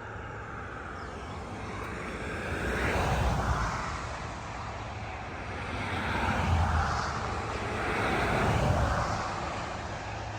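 Road traffic passing: the tyre and engine noise of vehicles swells and fades three times, about three, six and a half and eight and a half seconds in.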